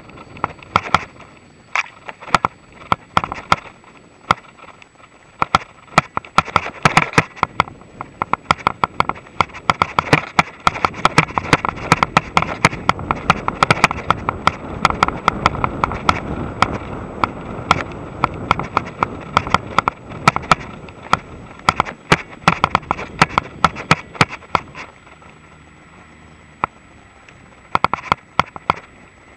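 Full-suspension mountain bike riding over a bumpy grass and dirt trail: constant sharp rattles and knocks as the bike jolts over the ground, over a rushing tyre and wind noise that builds through the middle and falls away near the end.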